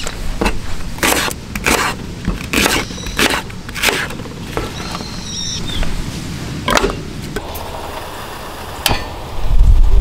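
A string of sharp knocks from a kitchen knife and green onion pieces on a cutting board, as the onion is cut and scraped into a steel tray of raw chicken and potatoes. A bird chirps briefly about five seconds in, and background music with a low beat comes in near the end.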